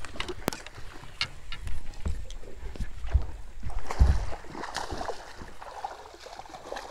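A hooked black bass thrashing and splashing at the water's surface during the fight, heard mostly in the second half. Before that come dull knocks and sharp clicks from gear being handled on the boat deck.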